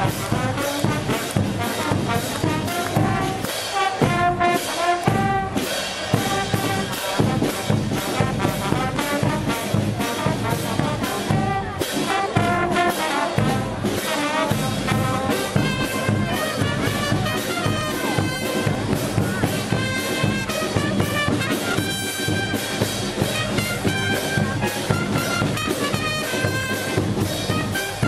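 Live brass band playing a lively dance tune: trumpets, trombones and saxophones carry the melody over a steady drum-and-cymbal beat.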